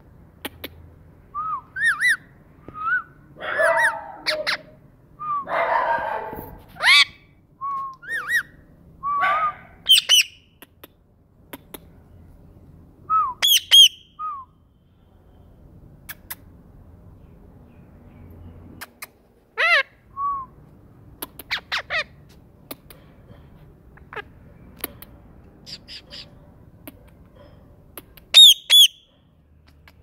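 Rose-ringed (Indian ringneck) parakeet calling: a string of short, sharp squawks and chirps, many gliding in pitch, with two longer raspy calls in the first few seconds. The calls are dense at first, then come in sparse single notes, and there is a loud double squawk near the end.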